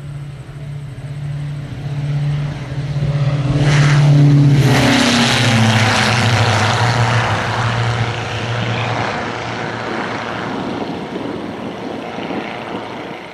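Diamond DA42 Twin Star twin-engine propeller aircraft taking off at full power. The engine drone grows louder as it rolls toward and past the camera, peaking about four seconds in with a falling pitch as it goes by. It then fades as the aircraft climbs away.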